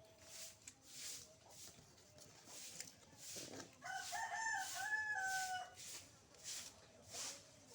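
A rooster crowing once in the background, starting about four seconds in and lasting a little under two seconds. Faint short scratchy strokes repeat throughout, roughly one every second or less.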